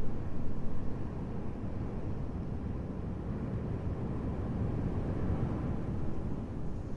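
Steady low rumbling ambient noise, with no distinct sounds standing out.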